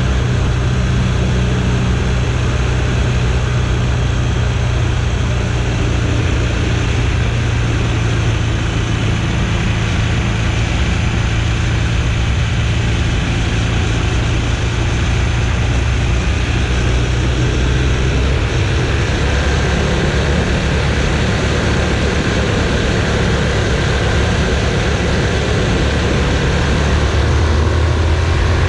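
BMW R1200GS flat-twin boxer engine running under way. Its note steps up and down in pitch a few times over a steady rush of wind and road noise.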